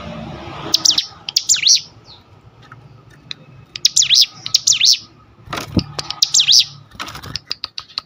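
A caged ciblek gunung, a prinia, calling in repeated groups of sharp, sweeping high chirps a second or two apart. Near the end comes a run of quick ticks.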